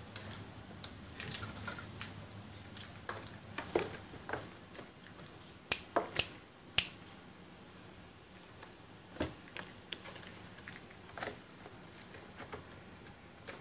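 Scattered light clicks, taps and scratches of kittens playing in a sisal cat tree and a hand playing with them, with three sharp clicks close together about six seconds in.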